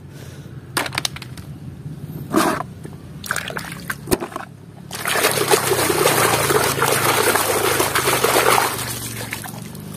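Hand washing plastic toy cars in a basin of soapy water: first scattered small knocks and drips as the toys are handled, then about five seconds in, steady splashing and sloshing as the hand churns the water, easing off near the end.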